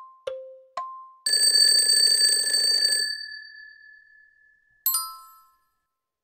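Quiz countdown-timer sound effects: an alternating high-low tick-tock about two ticks a second stops about a second in. A loud alarm-bell ringing follows for about two seconds as the time runs out, its last tone fading away. A short bright chime comes near the end.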